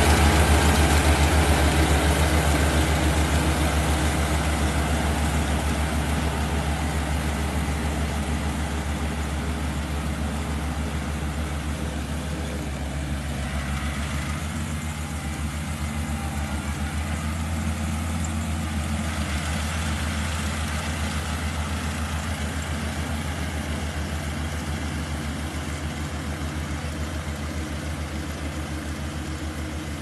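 Kubota SR40 mini combine harvester's diesel engine and machinery running steadily while it harvests rice, growing gradually fainter as the machine moves away.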